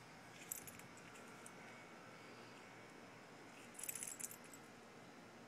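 Dog collar tags jingling briefly as the dog moves her head at the ground: a short jingle about half a second in and a longer, louder one about four seconds in, over near silence.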